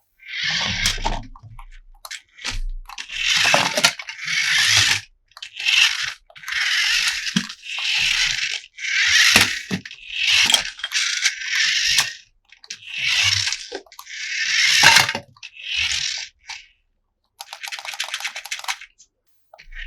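Packaging being torn and crinkled in about fifteen short, crackly bursts with brief pauses between them.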